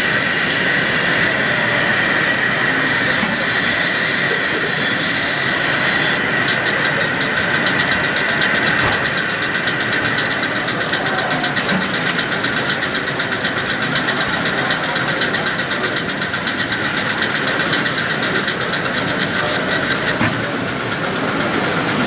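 O-gauge model tram running along its layout track under a steady background din. A fast, fine ticking joins about six seconds in.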